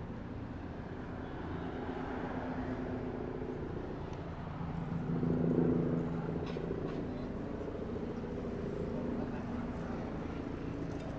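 Bell 429 GlobalRanger twin-turbine helicopter on approach: a steady drone of rotor and turbine, muffled through window glass, swelling briefly about halfway through.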